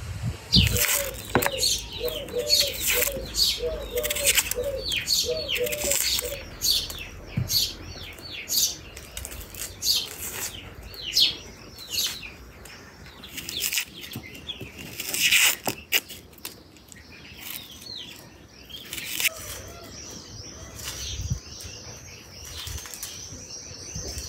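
Small birds chirping outdoors, many quick high chirps in close succession, with a run of short, lower repeated calls in the first few seconds. A single sharp knock comes about fifteen seconds in, and a steadier high chirring sets in after about twenty seconds.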